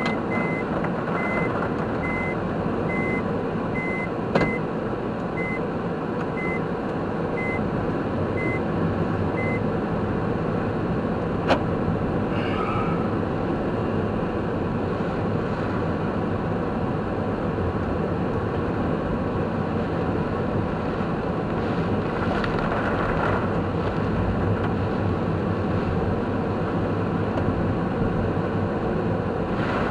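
Steady road and engine noise inside a moving car. For the first ten seconds or so a short high in-car beep repeats, about once a second and spacing out, and there is a sharp click near the middle.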